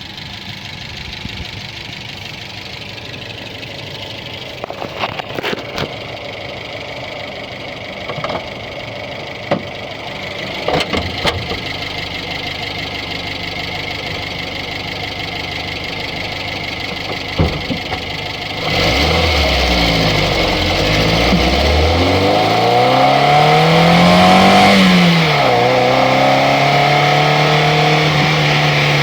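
Audi 80 B1's EA827 inline four-cylinder petrol engine: a quieter steady running with a few sharp clicks, then about two-thirds of the way in it gets louder, the revs climb to a peak and drop back to a steady idle.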